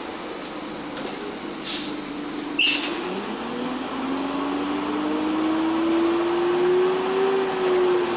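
1999 Nova Bus LFS transit bus pulling away: its engine and drivetrain whine, rising in pitch from about three seconds in as it accelerates, then levelling off near the end. Underneath runs the steady rush of the roof air-conditioning fans on full blast, and two short knocks sound about a second apart before the bus gets going.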